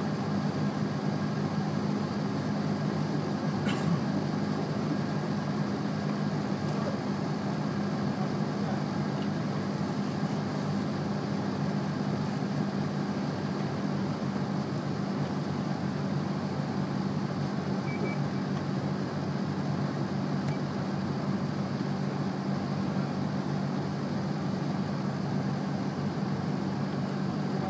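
Vehicle engine idling: a steady low hum under a constant hiss.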